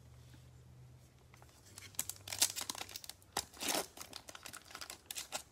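Foil wrapper of a Panini Prizm basketball card pack being torn open and crinkled by gloved hands: a run of crackling rips starting about two seconds in.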